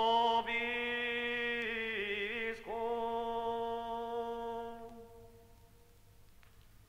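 A lone male voice singing Patriarchine chant, the old Aquileian-rite plainchant, unaccompanied in Latin. He holds long notes, sliding up into them, with a short wavering turn about two seconds in. The voice stops about five seconds in, leaving only faint hiss from the recording.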